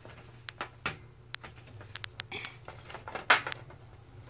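Small plastic toy figures clicking and tapping on a tabletop as they are handled and set down: a scattering of irregular light taps, the loudest a little past three seconds in, over a faint steady hum.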